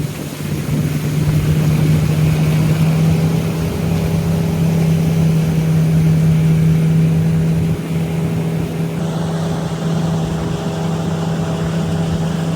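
Boat outboard motor running steadily at cruising speed, with one steady engine note over a loud rush of wind and water; the engine eases off slightly about eight seconds in.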